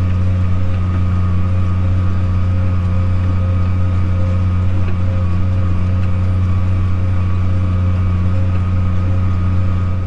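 Tractor engine running steadily under load while pulling a disk, heard from inside the cab as a constant low drone.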